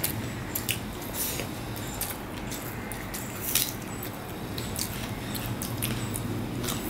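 Wet chewing and lip-smacking of a person eating chicken biryani by hand, with the soft squish of fingers working the rice on the plate. It is a string of short, sharp smacks, one louder about three and a half seconds in, over a low steady hum.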